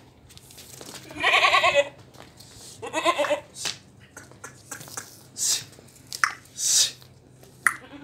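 A goat bleating twice, a long wavering bleat about a second in and a shorter one about three seconds in, with short hissing noises and light clicks in between.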